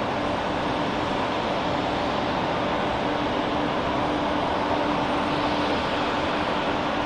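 Jet aircraft engines running steadily: a constant rush with a fixed hum over it.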